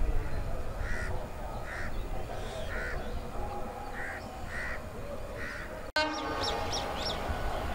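Crows cawing repeatedly, about seven caws less than a second apart, over a low rumble. About six seconds in the sound cuts out sharply and resumes with a different mix that includes short high bird chirps.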